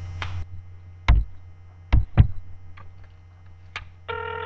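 About five sharp clicks and taps from a phone being handled and dialed, over a low steady hum. Near the end a steady telephone line tone begins.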